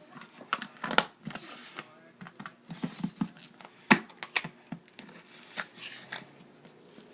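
Slime being squeezed and poked by hand, giving irregular sharp clicks and crackling pops, the loudest about one second in and again about four seconds in.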